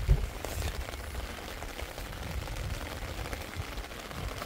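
Rain falling steadily, an even hiss of fine drops, with a low rumble underneath.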